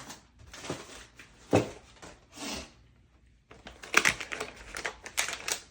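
Handling noises: rustling and crinkling, with one sharp knock about one and a half seconds in and a run of rapid crackling clicks in the second half.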